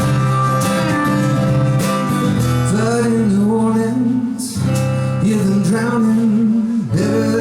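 Instrumental break in a live country-folk song: acoustic guitar holding chords, with a wavering fiddle melody coming in about three seconds in.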